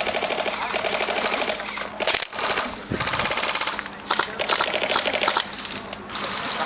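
Airsoft electric rifle firing a string of short full-auto bursts, a fast even mechanical rattle.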